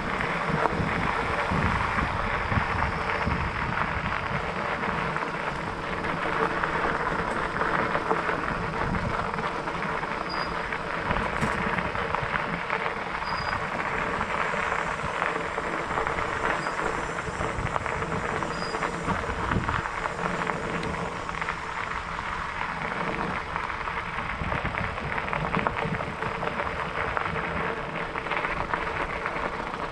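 Fat bike rolling steadily along a gravel trail: tyre and trail noise mixed with wind rumbling on the bike-mounted camera's microphone.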